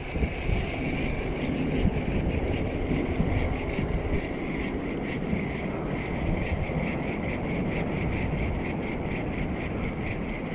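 Wind buffeting the microphone, with a steady high whirring underneath that pulses about four times a second.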